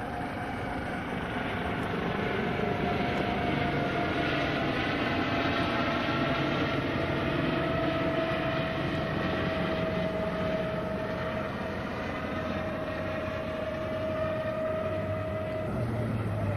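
Boat engine running steadily, with a whining tone that slowly drops in pitch.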